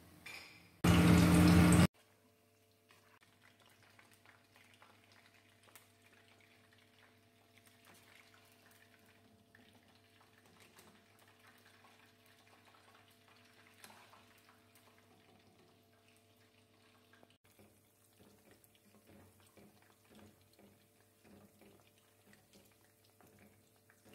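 A loud burst of noise lasting about a second, about a second in. After it comes a long faint stretch of sauce simmering in a steel pot over a steady low hum, with light clicks and scrapes of a spoon stirring that grow busier in the last few seconds.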